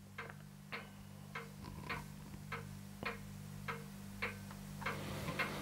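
Faint, even ticking, a little under two ticks a second, over a steady low hum.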